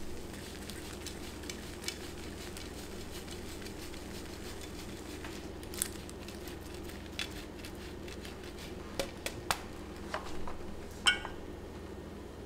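Cheddar cheese being grated by hand over a cast-iron pan: a run of soft, quick scraping strokes, then a few light clicks and one sharp metallic clink a little before the end, over a steady low hum.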